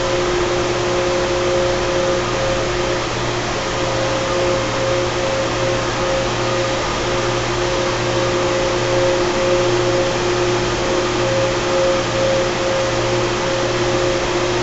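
Carrier 30HX chiller's screw compressors running steadily: an even rushing machine noise with two steady humming tones over it.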